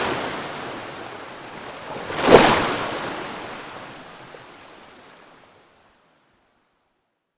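Water lapping in with the wind: a surge is already falling away at the start, a louder wash swells about two seconds in, and the sound fades out to nothing before the end.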